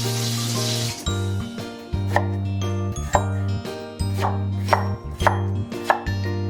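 A knife chopping on a cutting board, about six separate chops, over background music. A frying sizzle stops about a second in.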